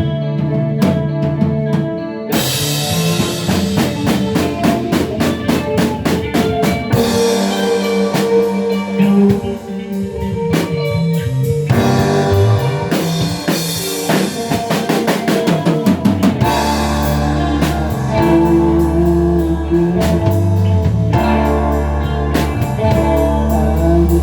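A live band playing a song: a drum kit keeps a steady beat with bass drum and rim hits under guitar and bass, and the low end grows heavier about two-thirds of the way through.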